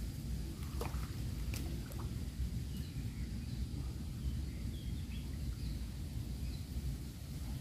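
Outdoor ambience: a steady low rumble with a few faint bird chirps, and a couple of light clicks in the first two seconds.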